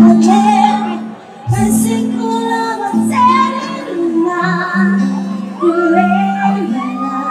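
Live music: a woman sings held, sliding phrases, accompanied by acoustic guitar, saxophone and cajon.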